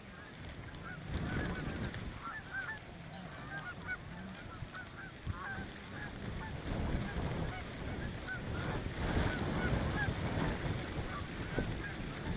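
A flock of Canada geese honking, many short calls overlapping one after another, over a steady low rumble.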